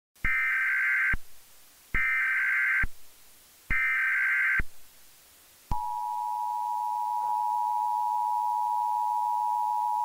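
Emergency Alert System SAME header: three short bursts of screeching digital data tones, each about a second long, followed about six seconds in by the steady two-tone EAS attention signal.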